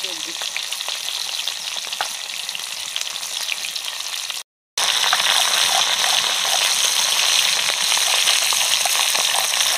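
Katla fish head frying in hot oil in a wide aluminium karai: a steady sizzle full of small crackles. It breaks off for a moment about halfway and comes back louder.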